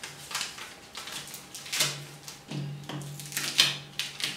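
Sheet of paper rustling and crinkling in short bursts as it is handled and gathered up on a tabletop.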